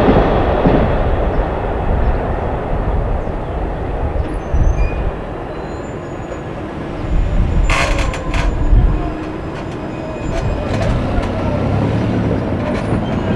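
Rumble of a departing Amtrak passenger train fading away over the first few seconds. About eight seconds in comes a short cluster of sharp clicks and knocks, and near the end a car's engine comes up as it drives over the crossing.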